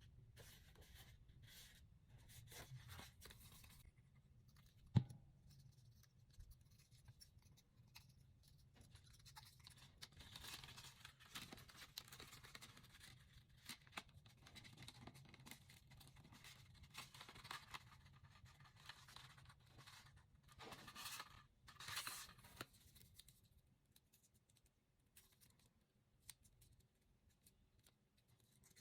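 Faint paper-crafting sounds: paper rustling, scraping and being cut, with one sharp click about five seconds in.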